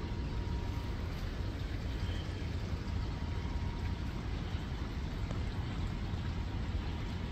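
Shallow creek water trickling over stones, heard as a steady hiss over a low, even rumble.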